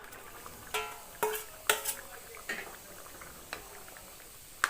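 A metal spoon knocking and clinking against a cooking pan about seven times, some knocks ringing briefly, as fried paneer pieces are added to the curry.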